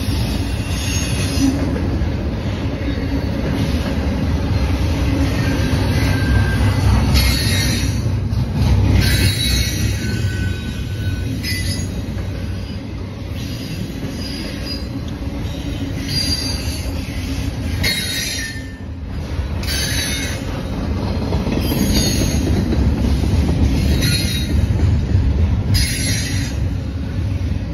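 Freight cars of a long Norfolk Southern manifest train rolling past, with a continuous low rumble of steel wheels on rail. Every few seconds there is a burst of high-pitched wheel squeal and screech, some of it a brief steady squealing tone.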